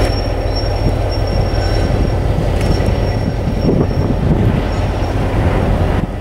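Nohab MY-class GM diesel-electric locomotive running as it rolls slowly past at the head of wagons, with a deep steady engine drone and wheels rumbling on the track. A faint high wheel squeal comes in now and then.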